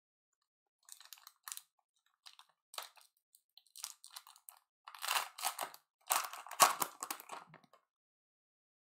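Wrapper of a trading card pack crinkling and tearing as it is ripped open by hand. It comes as a run of short rustles that grow louder about five seconds in.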